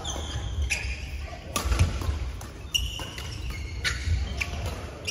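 A badminton rally: several sharp hits of rackets on the shuttlecock, court shoes squeaking briefly on the court mat, and footsteps thudding.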